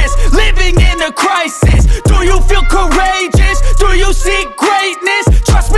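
Hip hop music with heavy, sustained bass notes and a bending melodic line over them.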